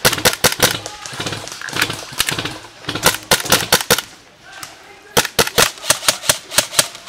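Airsoft guns firing in quick strings of sharp cracks, several shots a second, with a brief lull a little past halfway.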